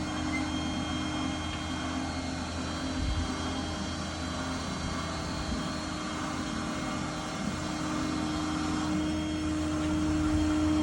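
Ford 6.7 Power Stroke diesel running steadily to power a hydraulic crane, with a steady whine from the crane's hydraulic system; it gets somewhat louder near the end.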